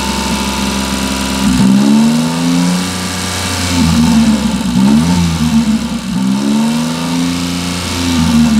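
Daihatsu Hijet's 660cc three-cylinder carbureted engine revved up and back down about three times from idle, to bring out the tapping of valves that are due for adjustment.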